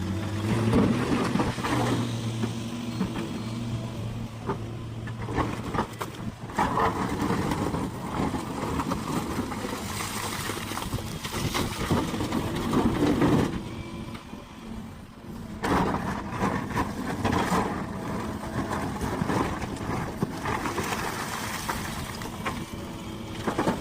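Heavy diesel mining machinery at work: engines running, with a low steady hum in the first few seconds and louder noisy stretches that swell and fade.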